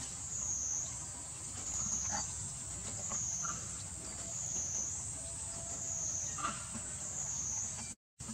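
A high-pitched insect chorus droning steadily, swelling and fading about every second and a half, with a few faint short chirps over a low rumble.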